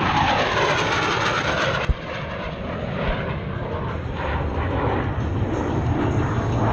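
Military jet passing low, its engine noise sweeping down in pitch as it goes by. The sound drops off abruptly about two seconds in, then continues at a lower level with jet noise building again near the end.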